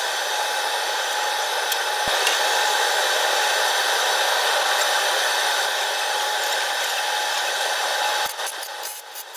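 A steady, even hiss that stops suddenly about eight seconds in, giving way to short scraping rubs.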